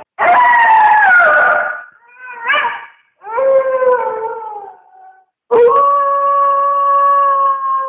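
A run of loud howls: a falling howl, a short rising yelp, another falling howl, then a long steady howl from about five and a half seconds in that sags slightly in pitch.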